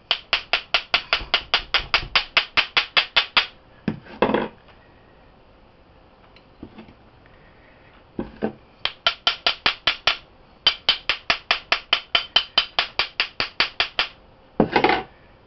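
Metal spoon tapping rapidly on a stainless steel sphere bath bomb mould, about six light metallic taps a second, in three runs. Between the runs come a few single louder knocks of the mould being handled.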